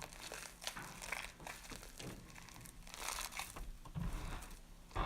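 Hands kneading and stretching stringy fluffy slime, giving irregular sticky crackles and small pops.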